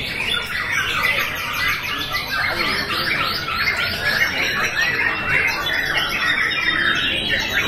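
Several white-rumped shamas singing at once in contest, a dense, unbroken tangle of overlapping whistles, trills and chatter.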